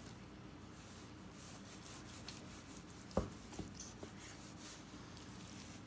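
Chef's knife slicing through cooked corned beef brisket on a cutting board: faint soft rubbing strokes of the blade through the meat, with a sharp tap about three seconds in and a couple of lighter ones after it.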